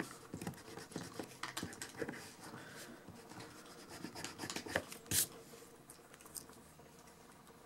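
A pencil scratching and rubbing on drawing paper in short strokes, with a few light taps. The strokes thin out after about five seconds.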